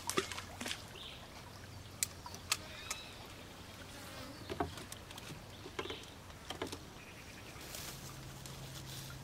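An insect buzzing steadily, with a string of sharp clicks and knocks from a fishing rod and reel being handled in a small boat during and after a cast.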